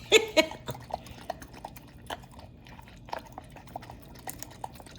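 Dog lapping and licking at a bowl of food with water poured in: irregular short wet clicks. A brief voice-like sound right at the start is the loudest moment.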